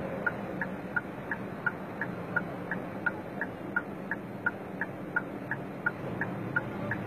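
A car's turn-signal indicator ticking steadily, about three short ticks a second that alternate between a higher and a lower pitch (tick-tock), over the low steady hum of traffic.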